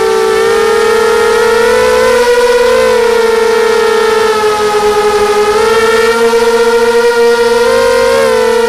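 Brushless motors and propellers of a QAV250 racing quadcopter, heard from the camera mounted on it: a loud steady whine with several harmonics, its pitch dipping a little around the middle and climbing back with the throttle.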